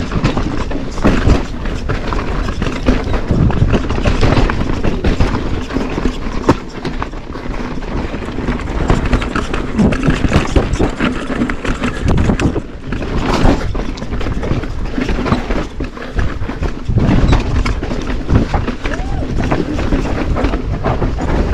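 Downhill mountain bike at speed over rock and loose stones: a continuous clatter of knocks and jolts as the tyres and suspension hammer over the rough ground, with a steady rumbling rush underneath.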